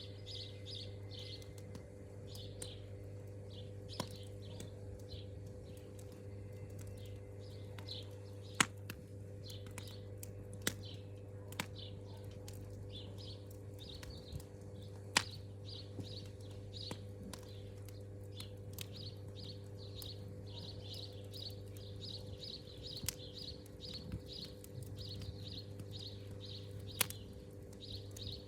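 Campfire crackling, with sharp pops here and there, over high chirping repeated in quick runs. A steady low hum sits underneath.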